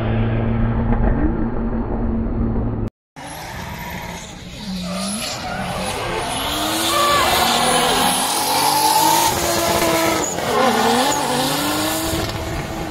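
A steady low engine drone, cut off abruptly about three seconds in. Then drift cars' engines rev up and down repeatedly, with tyre squeal as the cars slide.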